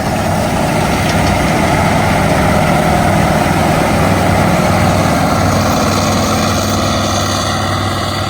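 AGCO Gleaner R62 combine's air-cooled V8 engine running steadily under load, with the drone of the machine.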